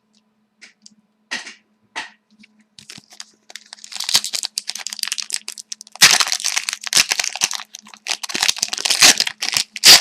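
Trading-card pack wrapper being torn open and crumpled: a few light clicks, then crackling and crinkling from about three and a half seconds in, turning loud about six seconds in.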